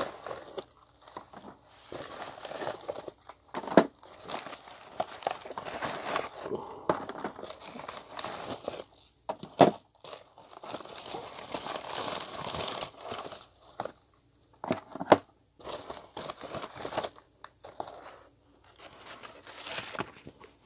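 Plastic mailing bag crinkling and rustling in bursts as lure packages are pulled out and handled, with three sharp knocks spread through.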